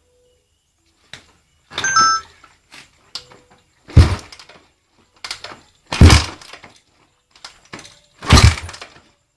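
Heavy knocks from a Suzuki FXR150 motorcycle's engine, about one every two seconds, with fainter ticks in between.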